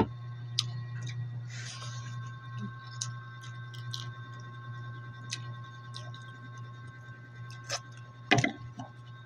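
Close-up eating sounds: mussel shells clicking and clacking as the meat is picked out by hand, with chewing, a brief rustle about two seconds in and a louder cluster of shell clacks near the end. A steady low hum runs underneath.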